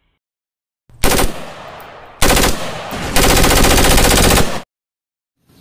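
Automatic-rifle gunfire sound: a short burst about a second in, another just after two seconds, then a longer rapid burst of about a second and a half that cuts off suddenly.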